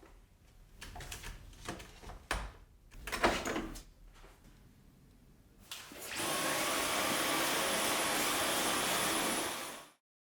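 Clicks and knocks of plastic parts being handled. Then, about six seconds in, a Dyson V11 cordless stick vacuum is switched on and runs steadily with a thin high whine, stopping abruptly near the end.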